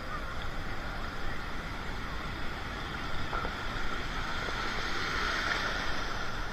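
Ocean surf washing and swirling in a steady rush of water noise.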